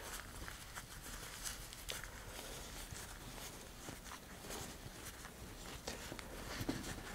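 Faint rustling of a small parachute canopy's fabric being folded and rolled up by hand, with scattered light ticks from the handling.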